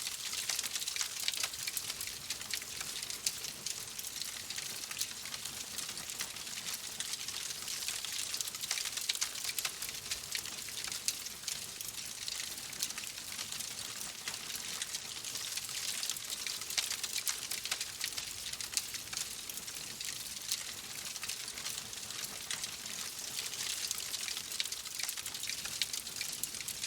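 Fireplace fire crackling: a steady hiss dotted with many small, quick snaps.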